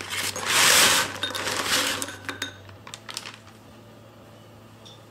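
Crisp toasted bread cubes sliding off baking paper and clattering into a ceramic bowl. There is a loud rush of tumbling pieces in the first second or so, then scattered clicks as the last cubes settle, dying out about three seconds in.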